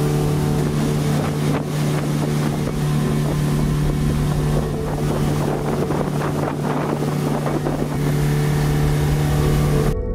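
Speedboat engine running at a steady pitch, under rushing wind and water noise that grows rougher midway. It cuts off abruptly near the end.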